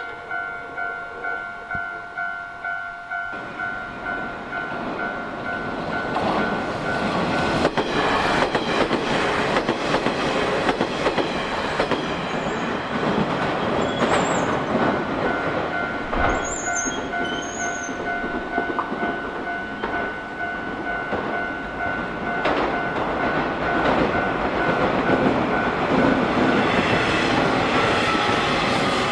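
Railway level-crossing warning bell ringing in quick repeated dings, then a Nishitetsu electric train runs over the crossing. From about six seconds in, the train's loud running noise and wheels knocking over rail joints cover the bell to the end.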